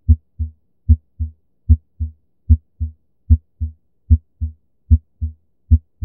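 Normal heart sounds: the first heart sound (S1, closure of the mitral and tricuspid valves) followed by the second (S2, closure of the aortic and pulmonary valves). The pair repeats steadily about every 0.8 seconds, with silence between the beats and the first sound the louder of each pair.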